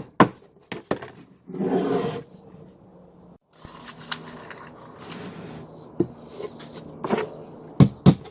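Hammer tapping nails into wood: a few strikes at the start and a quick run of strikes near the end. About two seconds in there is a short pitched, voice-like sound, and in the middle a few seconds of faint hiss.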